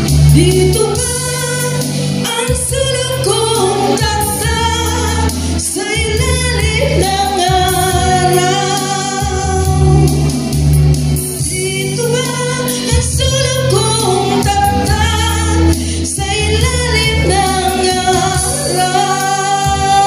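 A woman singing into a handheld microphone over backing music, holding long notes, with a steady bass line underneath.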